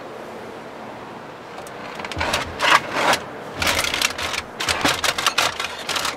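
Aluminium foil crinkling and rustling, with wire smoker racks clicking and rattling, as foil-wrapped ribs are handled and slid into an electric smoker. It comes in irregular bursts of crackle starting about two seconds in.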